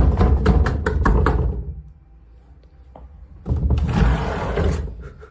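Loud knocking on a closet door: a rapid run of knocks, a quiet pause of about two seconds, then a second, noisier burst of knocking. The knocks come with no one inside the closet.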